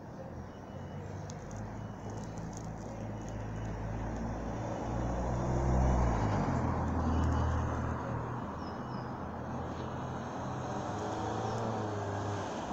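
A low engine hum that grows louder, drops in pitch about six seconds in, then runs steadily.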